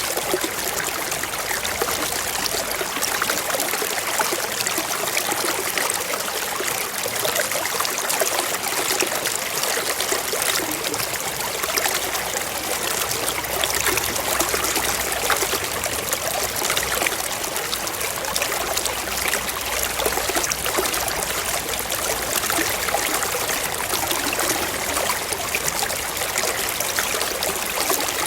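Waterfall: water cascading in a steady, unbroken rush, mostly a bright hiss with little bass.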